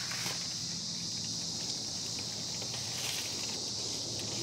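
Insects buzzing in a steady, unbroken high-pitched drone, with a couple of faint rustles about a second in and near the end.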